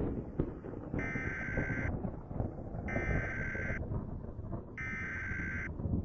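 Three EAS SAME header data bursts from a NOAA Weather Radio alert, each a harsh two-tone digital screech about a second long with a second's gap between, encoding an incoming tornado warning. A continuous low rumbling noise runs underneath.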